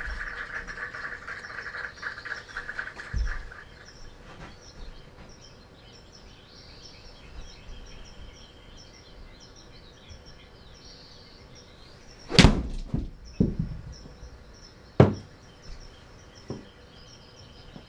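A 7-iron shot in an indoor golf simulator: a loud, sharp crack of club on ball and the ball smacking into the impact screen about twelve seconds in, followed by a few more sharp knocks over the next few seconds.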